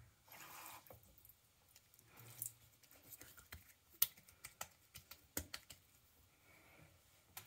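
Wet hands rubbing and patting a freshly shaved neck and face: faint soft rubbing with scattered sharp taps and clicks, the loudest about four and five and a half seconds in.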